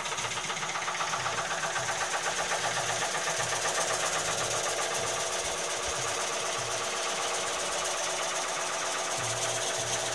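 A long-handled gouge cutting the inside of a large oak bowl spinning on a Heyligenstaedt VB36 lathe: a steady cutting noise over the running lathe, pulsing fast and evenly.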